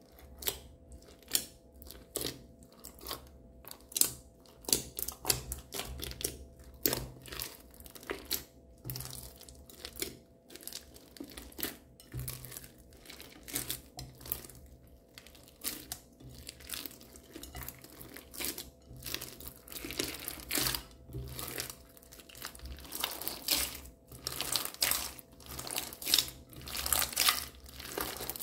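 Hands kneading and squeezing a large mass of fluffy slime mixed with glitter, sequins and beads in a glass dish: a continuous run of irregular wet crackles and pops, with louder clusters as the slime is folded and pressed.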